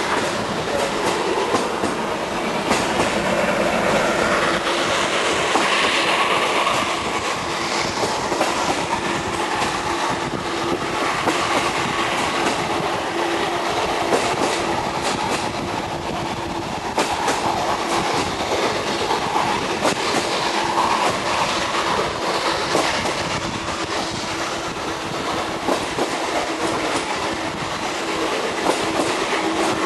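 Train hauled by the restored steam locomotive BDZ 46.03 running along the line: a steady rolling rumble with the clickety-clack of wheels over rail joints and scattered knocks. A faint steady tone comes and goes through the second half.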